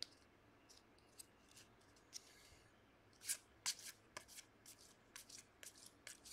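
Trading cards being flipped one by one off a stack in the hand: faint soft card-on-card flicks and slides, scattered at first and coming more often from about halfway through.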